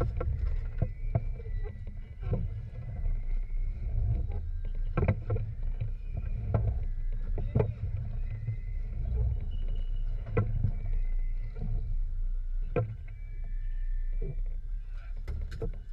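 Small fishing boat on open water: a steady low rumble of wind and water against the hull, with sharp, irregular knocks and clicks every second or two.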